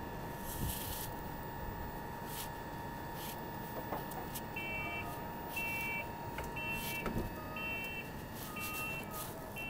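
Underground station ambience with a steady electrical hum. About halfway through, a short two-tone electronic beep starts and repeats about once a second.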